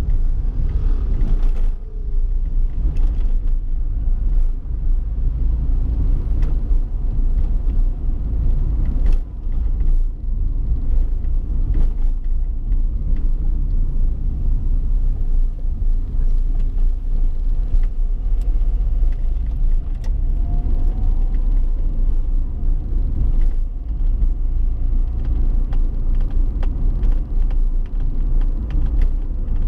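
Steady low rumble of a road vehicle driving along.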